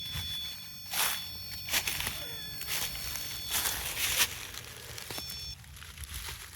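A person walking, about five uneven footsteps over a few seconds, with a thin steady high tone in the background.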